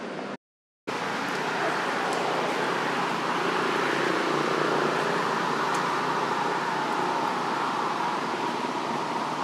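Steady outdoor background noise that cuts to total silence for about half a second near the start, with a few faint ticks.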